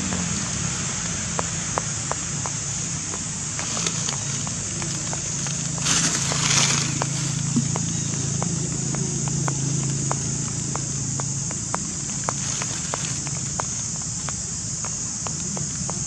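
Outdoor forest ambience: a steady high-pitched insect drone over a low steady hum, with scattered small ticks and a brief burst of rustling hiss about six seconds in.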